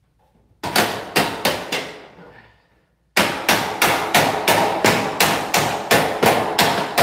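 Hammer blows on a hollow steel door frame, seating a metal anchor clip in the jamb, each strike ringing briefly. A quick group of about four blows, a pause of over a second, then a steady run of blows about three a second.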